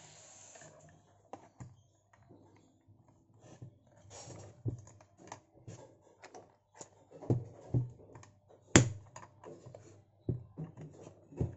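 Hard plastic parts of a USAMS tablet holder clicking and knocking as they are handled and fitted together, in irregular taps with the sharpest knock about nine seconds in.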